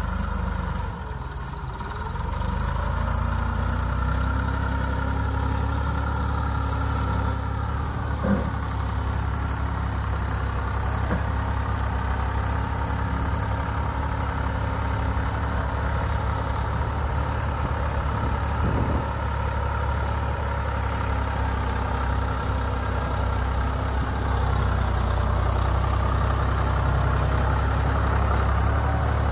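Massey Ferguson tractors' diesel engines running steadily while a front loader works. The engine speed drops and picks up again in the first few seconds, with a sharp knock about eight seconds in and a fainter one about nineteen seconds in.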